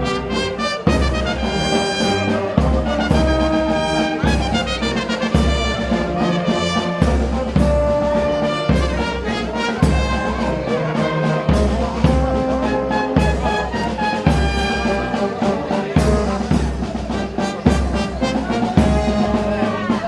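Brass band playing, trumpets and trombones holding notes over a steady low beat.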